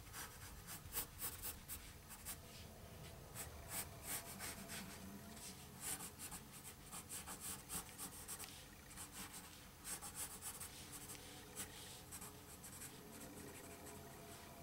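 Faint scratching of a graphite pencil on paper in many short, quick, irregular strokes, sketching jagged fur lines.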